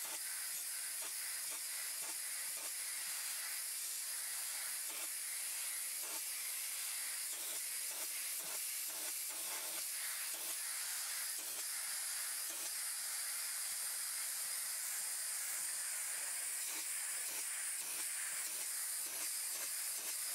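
Desiderio Plus steam cleaner jetting steam through a triangular nylon brush head, a steady hiss, with faint irregular scrubbing of the brush on a stainless steel grill surface as it breaks up baked-on grease and carbon.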